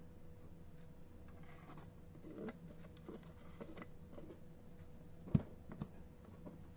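Faint rustling with a few light clicks and taps, and one sharper knock about five seconds in, over a steady low hum.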